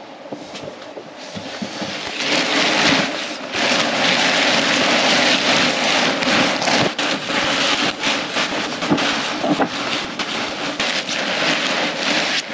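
Nylon spinnaker sailcloth rustling and crumpling as it is bundled loosely into its sail bag by hand, growing loud about two seconds in.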